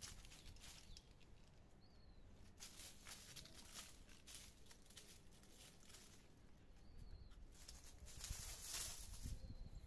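Faint rustling of leaves and branches, louder near the end, with a few brief, faint high chirps.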